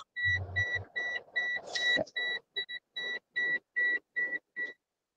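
Rapid high-pitched electronic beeping, about three short beeps a second, coming over a video call's audio and stopping near the end. It is likely the noise a participant was just asked to switch off.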